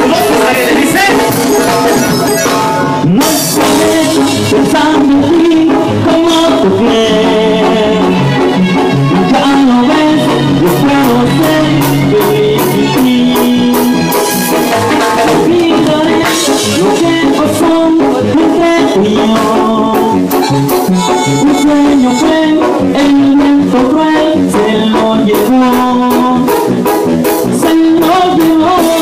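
Live amplified Mexican regional band music, with keyboard, drum kit and percussion playing loudly and steadily.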